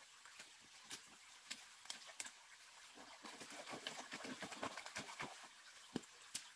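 Footsteps of rubber boots on rock and leaf litter, as irregular clicks and taps with twigs and leaves rustling. A faint steady hiss of forest ambience sits underneath. The loudest tap comes near the end.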